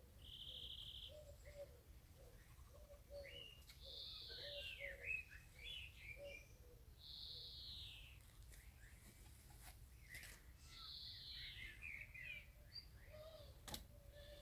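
Common swifts screaming: faint, shrill, drawn-out calls that fall in pitch, coming every three to four seconds, with shorter twittering calls in between.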